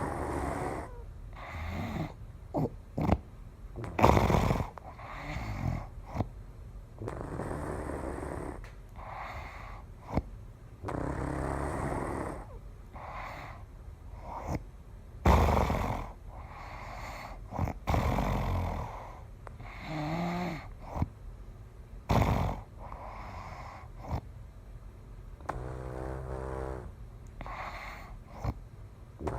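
A person snoring in sleep: rough breaths a second or two apart, broken by sharp snorts, with a rattling, fluttering snore near the end.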